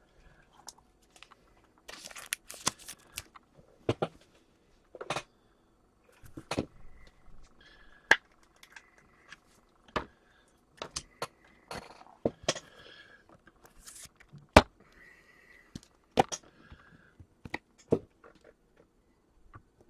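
Trading cards and their packaging handled on a table: scattered sharp clicks and taps, with a few brief crinkles of plastic wrapper.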